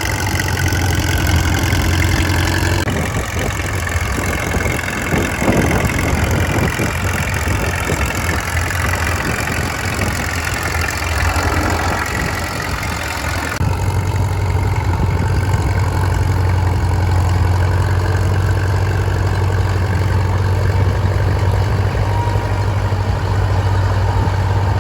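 Caterpillar D2 crawler tractor's four-cylinder diesel running steadily under load while pulling a plough, with a strong low hum. The sound changes abruptly about 3 and 14 seconds in, the low hum weaker in between.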